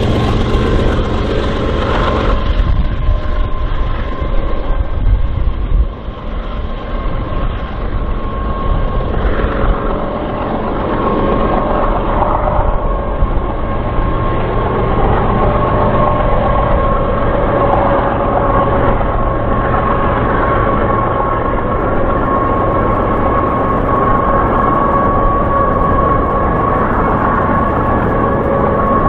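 Diesel-hauled freight train running on the rails: heavy rumble of locomotives and cars, with a steady high whine above it.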